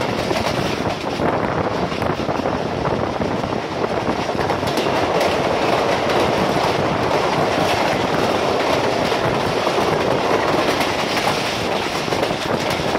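Passenger train running at speed, heard from the side of a moving coach: a steady rumble of wheels on rail with clicks of the wheels passing over rail joints.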